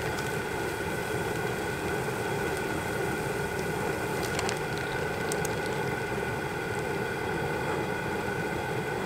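Large stainless stockpot of water at a rolling boil: a steady rushing roar with a faint hum running through it. A few light clicks come about four to five seconds in as a plastic-bagged chicken is lowered into the water to shrink the bag.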